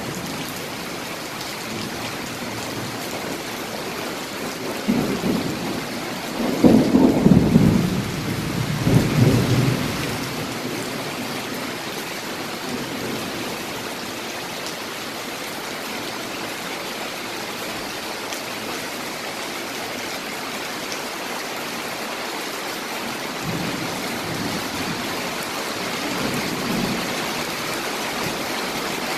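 Steady rain falling, with deep rolls of thunder about five to ten seconds in and a fainter rumble near the end.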